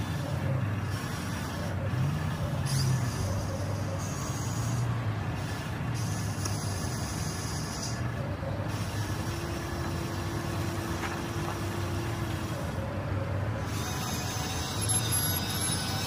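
Radio-controlled model excavator running: a steady low rumble that rises and falls in uneven pulses, with a thin motor whine for about three seconds near the middle.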